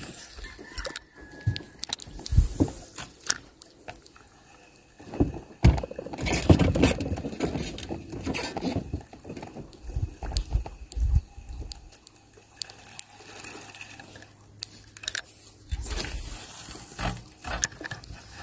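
Irregular knocks, clicks and scraping from handling a spinning rod and reel in a jon boat, with a few louder low rumbles in between.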